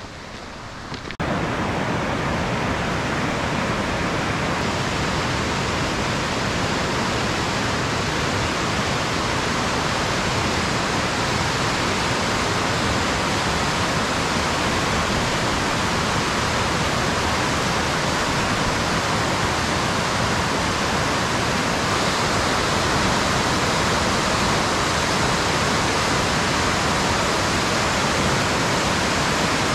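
River rapids: whitewater rushing and churning over rock ledges, a loud, steady rush that starts abruptly about a second in.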